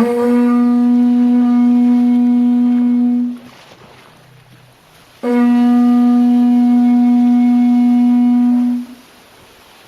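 A bull's horn (banya de bou) blown as a signal horn: two long, steady blasts on the same low note, each about three and a half seconds, with a short gap between them.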